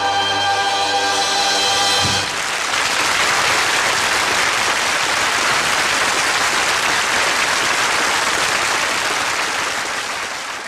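The song's final held chord ends about two seconds in, followed by steady audience applause that begins to fade near the end.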